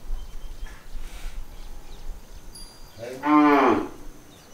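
Young calf mooing once, a short call that rises and falls in pitch, about three seconds in.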